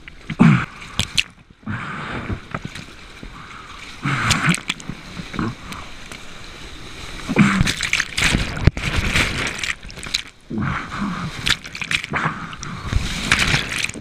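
Whitewater of a river standing wave rushing and splashing over a bodyboard and a camera at water level, coming in irregular loud surges with brief drops between them.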